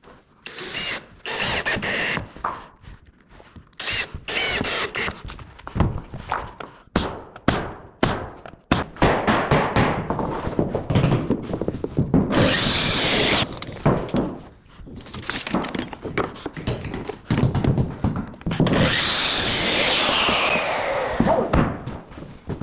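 Wood-framing work: repeated knocks and thunks of timber being handled and struck, with two longer runs of a power tool, one about halfway through and one near the end.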